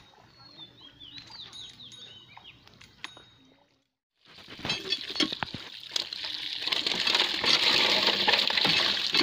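A few bird chirps over a faint background, then about half a second of silence. Then water gushes steadily from a hand-pump spout onto fish heaped in a net, much louder than before.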